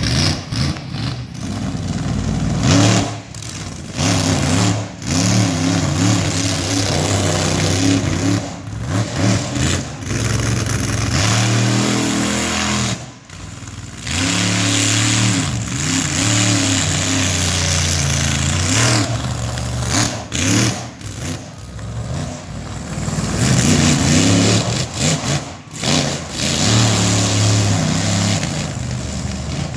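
Monster truck engine revving hard, its pitch repeatedly climbing and falling as the truck accelerates, with several abrupt cuts in the sound.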